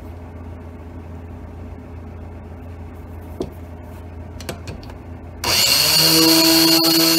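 The electric driver motor of a valve seat grinder switches on suddenly about five and a half seconds in and runs at speed with a steady high whine, spinning the grinding stone in its dressing stand to dress the stone. Before it starts there is a low steady hum and a few light clicks of the tool being handled.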